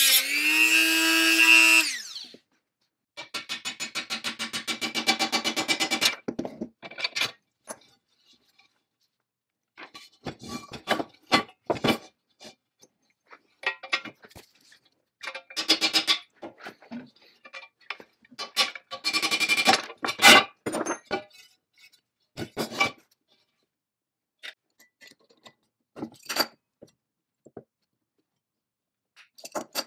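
Small rotary tool with a cut-off wheel whining on a rusted cast-iron hinge pin, its pitch wavering and then dropping as it stops about two seconds in. A dense, fast rattle follows for about three seconds. After that come scattered metal clicks, scrapes and taps as hand tools, a tap wrench and a screw extractor, work the seized pin.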